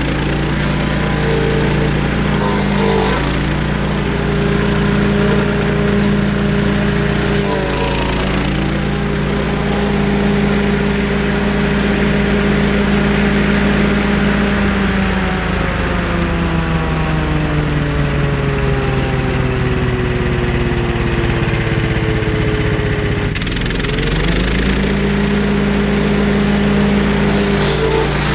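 Stump grinder engine running hard as the cutter works a stump. From about halfway in, the engine note sinks slowly as it labours under the load, then climbs quickly back up to speed near the end.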